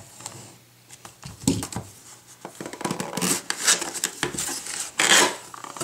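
A utility knife slits the packing tape on a cardboard shipping box, then the box flaps are pulled open and handled. It comes as a series of short scrapes and cardboard rustles, the loudest about three and five seconds in.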